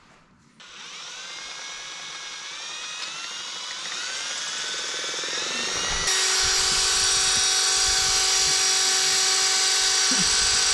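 Electric drill boring a hole, its whine climbing in pitch in steps as the trigger is squeezed, then running at full speed with a louder, steady high whine from about six seconds in.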